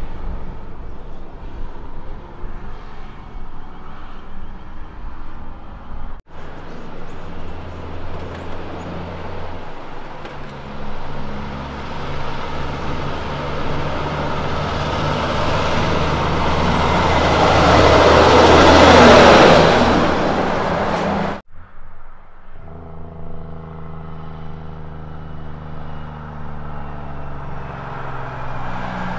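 Diesel prime movers hauling livestock crates, heard in three separate takes with the sound cutting off abruptly twice. The middle take has a truck driving past, loudest about two-thirds of the way through, with its engine pitch dropping as it goes by. Near the end another truck's engine is running as it approaches.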